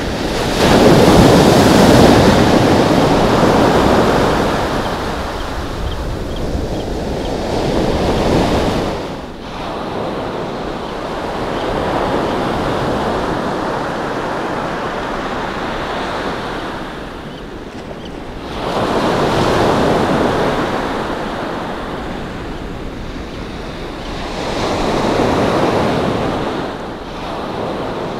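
Ocean surf breaking and washing up a pebbly sand beach, a few waves swelling and ebbing in turn, the loudest at the start, with wind buffeting the microphone.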